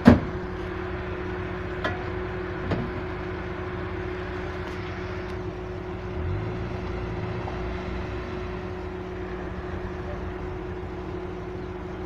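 Off-road vehicle engine running steadily at idle. A sharp knock comes right at the start, lighter clicks follow about two and three seconds in, and a deeper engine note swells about six seconds in.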